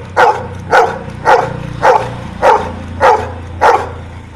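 Golden retriever barking a steady series of single sharp barks, about two a second, about eight in all, counting out the number ten on cue.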